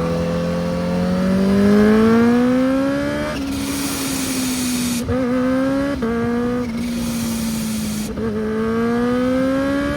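Supercharged inline-four engine of a Kawasaki Ninja H2 motorcycle, rising in pitch as it pulls for about three seconds, then running on with short dips in pitch around the middle and again near the end before climbing once more. A rushing hiss comes in over the engine twice, in the stretches where the pitch stops rising.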